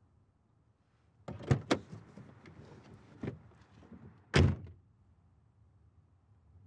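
Car door opening with two sharp latch clicks, movement as someone gets out, then the door slammed shut with a heavy thunk about four seconds in.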